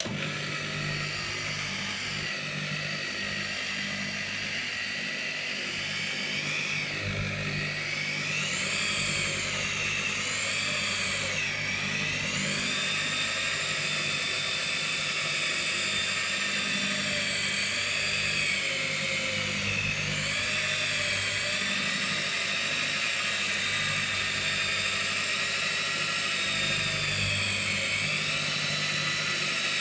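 Electric rotary polisher switched on and running with its foam pad on the car's clear coat, a steady motor whine. The pitch dips and recovers several times.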